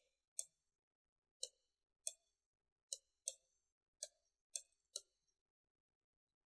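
Computer mouse clicks, about nine of them, short and sharp and irregularly spaced over the first five seconds, then they stop.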